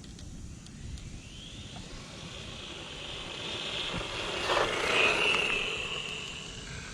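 Hosim Q903 1/16-scale brushless RC truggy at full throttle on a speed run: a high-pitched motor and drivetrain whine that grows louder as the truck comes in, is loudest about five seconds in, then fades as it goes away.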